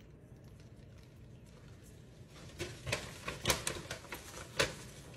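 Paper bag rustling and crinkling in irregular bursts, starting a couple of seconds in, as it is shaken to loosen dried lavender flower petals.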